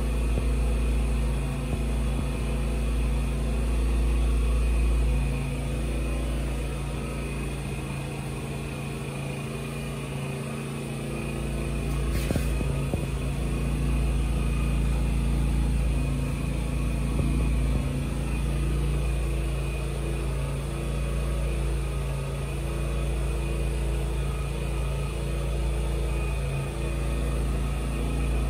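A running engine's steady low hum with a deep rumble underneath.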